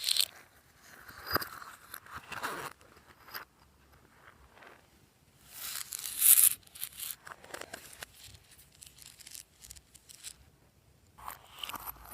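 Glossy slime being worked by hand: irregular sticky, crackling squelches and tearing sounds in bursts, the loudest about six seconds in.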